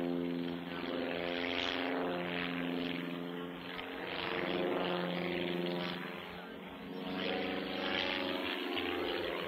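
Cap-21 aerobatic monoplane's propeller engine running in flight, its note shifting in pitch several times while the sound swells and fades as the plane manoeuvres.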